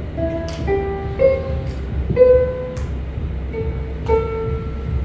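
Instrumental music: a slow melody of single held notes, one after another, over a low room rumble, with two sharp clicks, about half a second in and near three seconds in.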